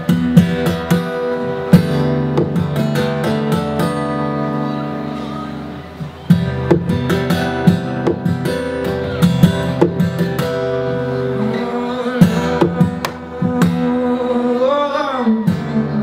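Acoustic guitar laid flat across the lap and played percussively: notes tapped and hammered on the fretboard and beats struck on the body, ringing on in an instrumental passage.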